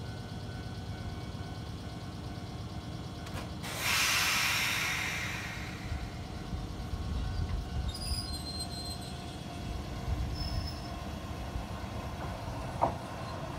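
Kotoden electric train at a station, with a steady low rumble. About four seconds in comes a sudden loud blast of compressed-air hiss that fades away over about two seconds. Brief high squeals follow around eight seconds, and there is a single click near the end.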